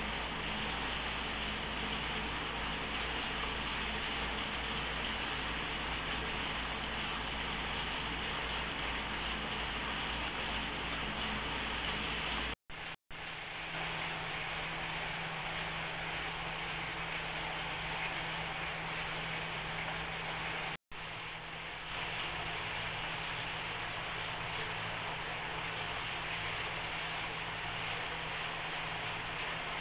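Steady rushing splash of a sheet of water pouring from a waterfall spillway onto rocks and gravel, broken by three brief gaps about halfway through.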